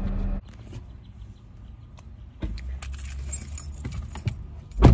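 Clicks, clinks and rustles of things being handled inside a car, over a low hum that starts a little past two seconds in, ending in one heavy thump.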